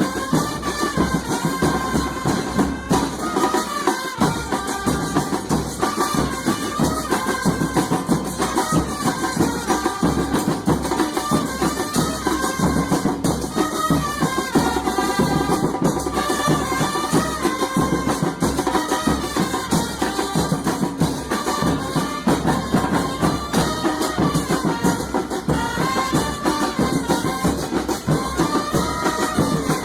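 Music with a melody over a fast, steady percussion beat.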